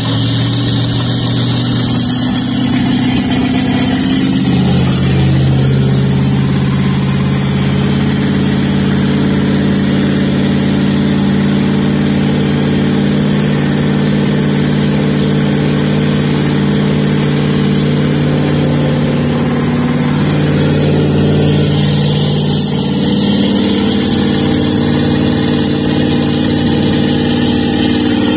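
A Warlock Sportster's 502 HO big-block V8 runs at idle, with the boat out of the water and its sterndrive fed by a garden hose. The engine speed rises a little about five seconds in, holds there, and eases back down about twenty seconds in.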